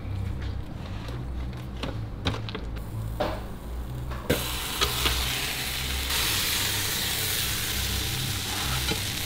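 A few clicks and knocks as a tortilla wrap is handled on an electric contact grill, then the wrap sizzling between the hot grill plates. The hiss sets in about four seconds in and grows louder a couple of seconds later.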